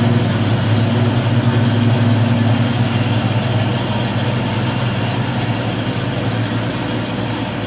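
A 1972 Ford Mustang Mach 1's 351 Cleveland V8 idling steadily.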